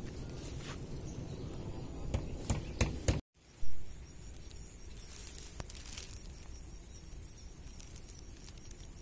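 Rustling and irregular clicks of someone moving through grass and handling gear. After a brief break there is a single loud thump about three and a half seconds in, then a low steady rustle.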